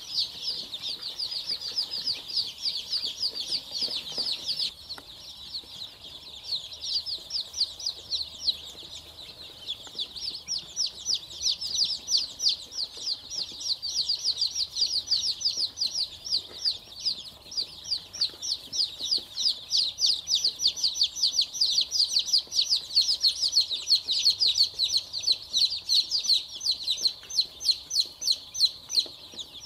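A brood of chicks peeping without pause, many short, high, downward-falling cheeps overlapping. The peeping thins out about five seconds in, then grows louder and busier from about ten seconds on.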